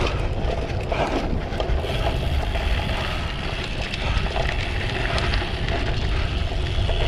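Wind rumbling on the microphone of a camera riding on a cyclocross bike during a race, with scattered clicks and rattles from the bike and a steady hiss from about two seconds in.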